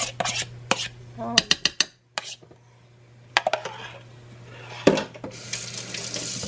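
Utensil knocking and scraping against a ceramic slow-cooker crock as pieces of chicken in barbecue sauce are moved around, in irregular clusters of clicks with a firmer knock near the end, followed by a short rustle.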